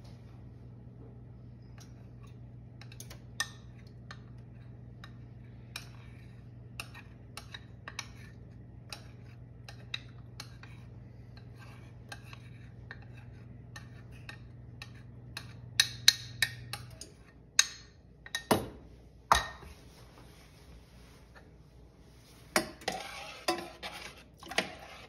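A metal utensil stirring in a stainless-steel saucepan, with scattered light clinks, then louder clangs of metal against the pot in the last third. A low steady hum stops about two-thirds of the way through.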